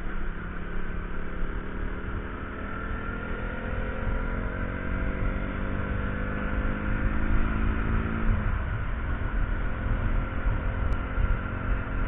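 KTM 200 Duke's single-cylinder engine pulling at road speed, its note rising slowly for about eight seconds before dropping away, over heavy wind rumble on the microphone.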